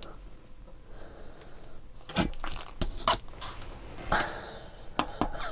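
A metal pick scraping and tapping against the solder side of a Commodore 64 motherboard, with the board being handled: a string of short scrapes and clicks starting about two seconds in and recurring near the end.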